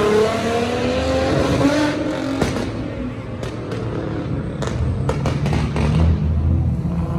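Car engine accelerating, its pitch rising steadily for about two and a half seconds, then easing off with a few sharp cracks and a low rumble.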